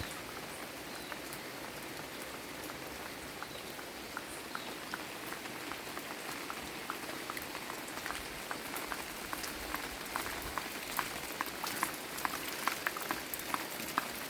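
Rain falling steadily, an even hiss with many separate drops ticking close by; the drops come thicker and a little louder in the last few seconds.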